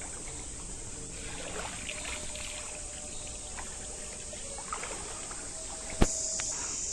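Water sloshing faintly as a person wades knee-deep in a hot-spring pool, over a steady high chirring of crickets. A sharp click about six seconds in.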